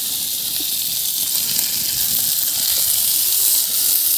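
Fish pieces frying in hot oil in a metal wok over a wood fire: a steady, high hissing sizzle.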